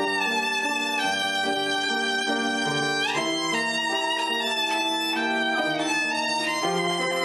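Background music led by a violin playing held notes that change about once a second, with one upward slide about three seconds in.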